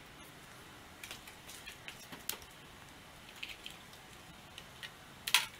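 Faint, scattered clicks and taps from plugging a SATA cable into a bare hard drive and handling it on a workbench. A sharper click comes a little over two seconds in, and a louder one near the end.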